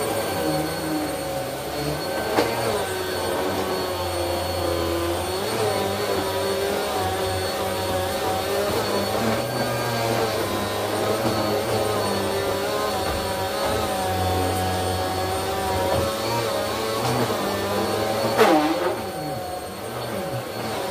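Upright vacuum cleaner running on carpet, its motor tone wavering up and down as it is pushed back and forth, with a few faint clicks. Near the end there is a brief louder surge with a dip in pitch, after which it runs a little quieter.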